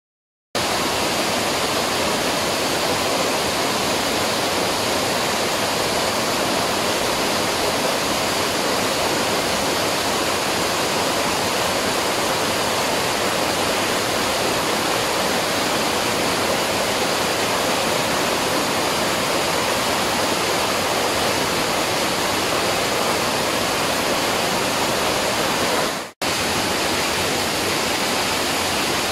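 Waterfall: a steady, even rush of falling water, broken by a brief sudden dropout near the end.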